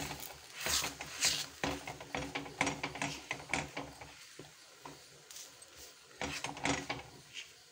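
A hand pressing and patting bajra dough flat on a greased iron tawa: irregular soft slaps and rubbing scrapes, busier in the first few seconds and again near the end.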